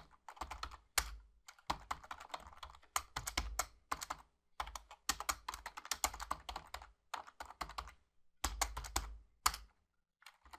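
Typing on a computer keyboard: quick runs of key clicks broken by short pauses, with a longer pause near the end.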